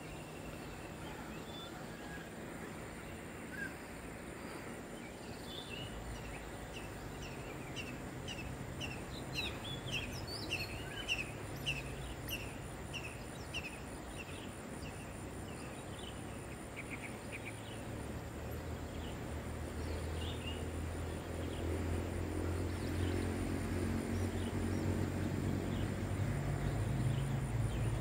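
Outdoor riverside ambience: a run of short, high, falling chirps repeated about twice a second through the middle of the stretch, over a steady high insect whine, with a low rumble building in the second half.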